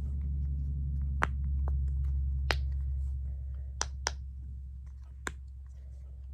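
Silicone pop-it fidget being pressed: about five sharp pops at irregular intervals, over a steady low hum.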